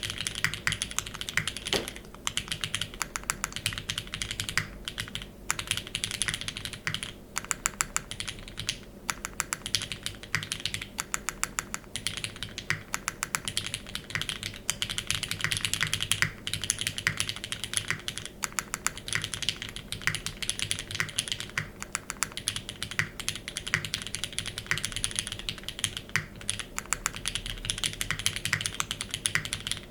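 Keycult No. 2/65 mechanical keyboard with lubed, filmed retooled Cherry MX Black linear switches on an aluminium plate and GMK keycaps, typed on quickly and continuously, with a few short pauses.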